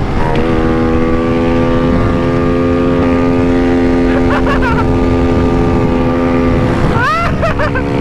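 Small single-cylinder pit bike engine, a Kawasaki KLX110, running hard at high, steady revs while riding, with wind noise on the microphone. Near the end the engine pitch shifts briefly before settling again.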